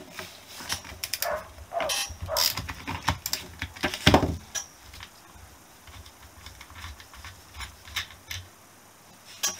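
Socket ratchet clicking in quick runs as a bolt on a Honda XL250S front brake panel is undone, with one loud metal clunk about four seconds in. Sparser clicks and taps of tools on the part follow.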